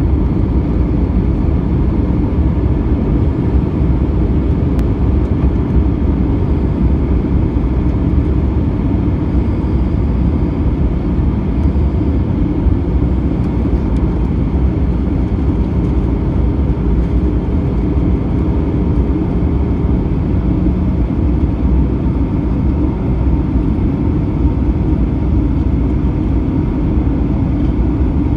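Airbus A320 cabin noise heard from a window seat beside the wing during descent: a steady, deep roar of engines and airflow, with a faint steady hum above it.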